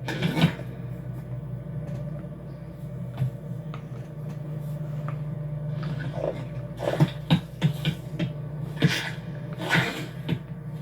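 Animated-film sound-effects track: a steady low hum of room tone under scattered short foley rustles, knocks and scrapes, more of them in the second half.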